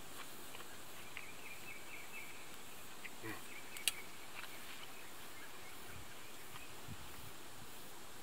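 Quiet outdoor ambience: a steady low hiss with faint, broken chirping. A single sharp metal clink about four seconds in as a fork hits a metal mess plate.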